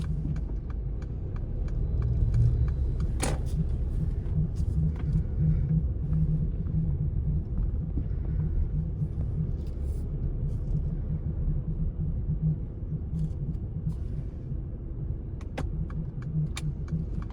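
Car on the move: a steady low rumble of road and engine noise, with scattered light clicks and knocks.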